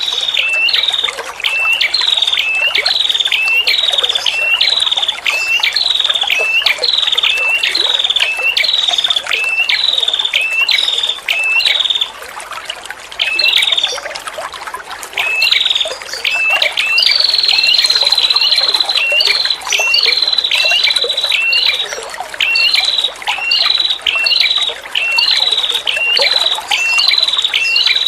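A female red-headed prenjak calls in a fast, repeated series of sharp, high notes. Each note drops in pitch, about two a second, with a short break near the middle and a longer held note just after. Under the calls runs a steady trickle of water.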